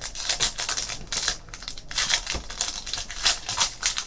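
A plastic foil wrapper of a trading card pack is torn open and crinkled by hand, with a run of short crackling rustles.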